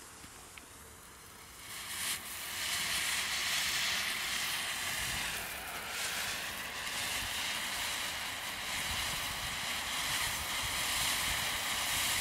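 Lesli Peacock firework fountain spraying sparks: a faint hiss that swells about two seconds in to a loud, steady rushing hiss.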